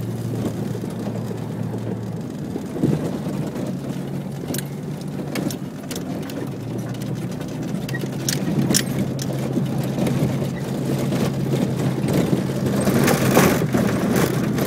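Sandstorm wind blowing hard over the microphone, swelling in a stronger gust near the end, over a steady low engine hum. A few sharp ticks of blown debris come in the middle.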